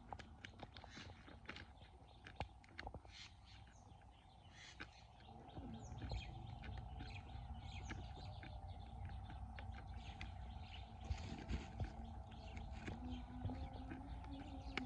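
Small birds chirping repeatedly over a steady hum, with a low rumble coming in about five seconds in.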